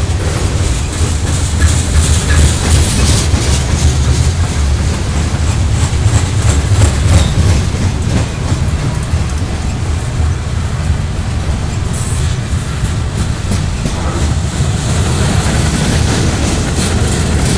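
Freight train's covered hopper cars rolling past close by: a steady low rumble of steel wheels on rail, with irregular clicks from the wheels over the track.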